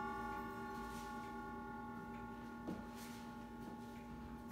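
Grandfather clock striking nine: one hour stroke on its chime rod rings on and slowly fades, with the clock ticking faintly underneath. The next stroke, on the same note, comes at the very end.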